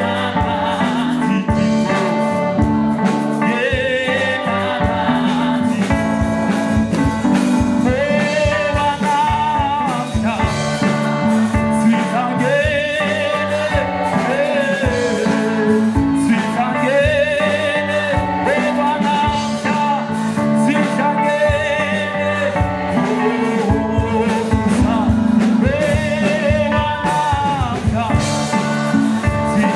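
A gospel vocal group of mixed voices singing through a PA, over amplified band accompaniment with a steady beat.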